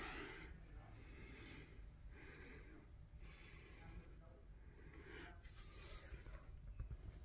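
Near silence with a few soft breaths close to the microphone and faint rustling as the phone is moved.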